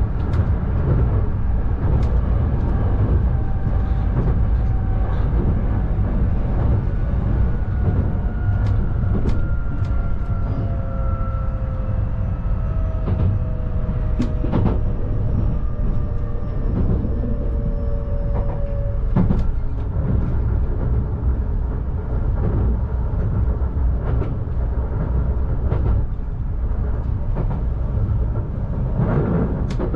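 Nankai 12000 series electric train running, heard from just behind the driver's cab. A steady low rumble of wheels on rail carries scattered sharp clicks and knocks from rail joints and points. A faint whine slowly falls in pitch for about ten seconds partway through.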